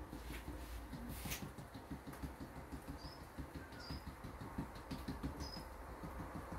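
Silicone tea-light moulds full of wet casting plaster being tapped and jiggled on a glass table: a quick, even run of soft, dull knocks, about five a second. The tapping agitates the plaster to bring trapped air bubbles to the surface.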